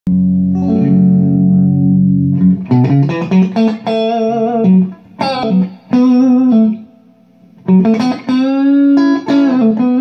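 Electric guitar, a Strat-style partscaster with Lindy Fralin pickups, played through an Orange AD30 single-channel tube amp with a Diaz reverb unit in front. A low chord rings for about two and a half seconds, then single-note lead phrases follow with wide vibrato, with a short pause about seven seconds in.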